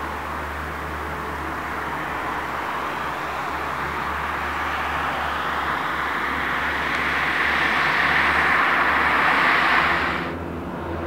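Engines of a Canadair amphibious water-bomber, a rushing drone that grows steadily louder as the aircraft approaches, then cuts off suddenly about ten seconds in.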